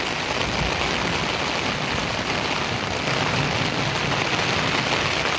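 Heavy rain pouring onto flooded ground: a steady, dense hiss.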